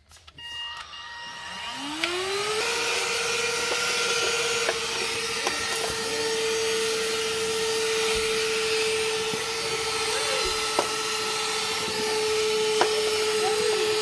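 AIRSEE cordless handheld vacuum cleaner switched on: its motor spins up with a rising whine about a second in, then runs at a steady pitch with a strong rush of air through its flexible hose attachment. A few small clicks sound as the nozzle sucks dust from a window track.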